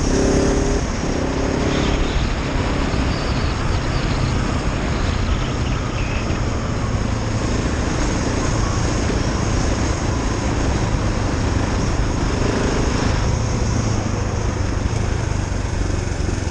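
KTM 690 Enduro R's single-cylinder engine running steadily at riding speed, with a constant rush of wind and tyre noise.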